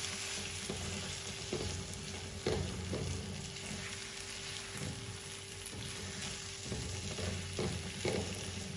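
Eggs, diced fried potatoes, cherry tomatoes and peppers sizzling in a hot pan while a silicone spatula stirs and scrambles them, with soft scraping strokes against the pan.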